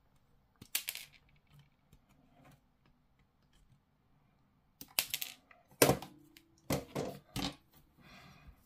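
Sprue cutters snipping plastic miniature parts off a grey plastic sprue, with the sprue frame knocking and rattling: one sharp click about a second in, then a cluster of loud snips and knocks from about five to seven and a half seconds in.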